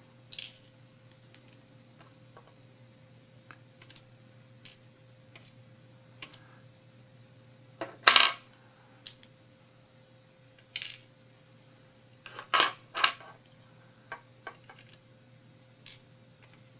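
Small metal lock parts (pins, springs and core pieces from a disassembled padlock) clicking and clinking as they are handled and set down on a hard surface. The clicks are scattered and irregular, with louder clusters about halfway through and again a few seconds later.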